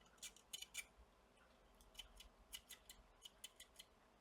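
Faint, irregular little ticks and clicks, about a dozen, from soldering a laptop charging port's pins to the board.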